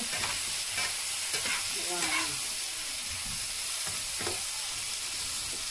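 Onion, chorizo and cherry tomatoes sizzling in oil in a frying pan while a wooden spoon stirs them, with scattered scrapes and knocks of the spoon against the pan.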